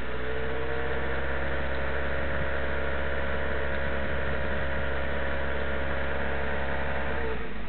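Toyota Solara's 2.2-litre four-cylinder engine held at raised revs in neutral, a steady drone, with the vibration around 1800 to 2000 rpm still present despite new engine mounts. The revs drop back near the end.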